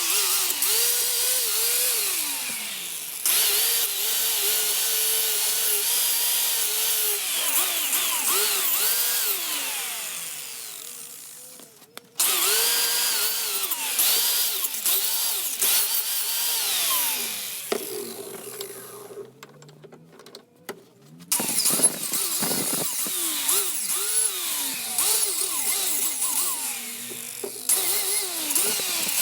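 Handheld electric power tool running on metal or wood, its motor pitch dipping and recovering over and over as it is pressed onto the work. It comes in several clips with abrupt breaks.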